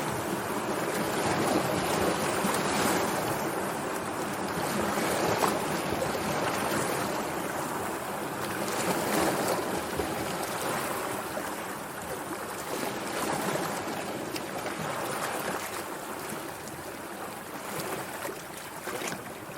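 Sea waves washing in and drawing back, a steady rushing hiss that swells and ebbs every few seconds.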